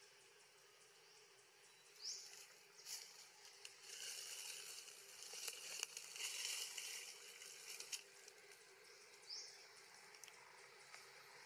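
Faint insect buzzing that swells for a few seconds mid-way, with scattered light clicks and two short rising chirps, one about two seconds in and one near the end.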